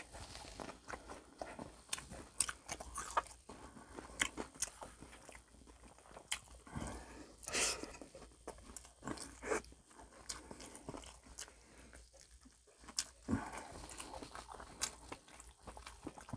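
Close-up chewing of crispy chicharon (fried crackling): irregular crisp crunches with quieter chewing between them, the loudest about halfway through.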